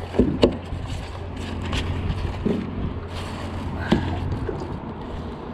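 Knocks and clicks of handling in a small aluminium-style fishing boat, two sharp ones near the start and single ones about two and four seconds in, over a steady low hum that fades about four seconds in.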